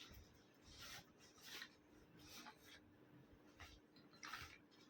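Faint rustling and rubbing as items are handled and pulled out of a backpack, a few short scrapes spaced about a second apart, over a faint steady hum.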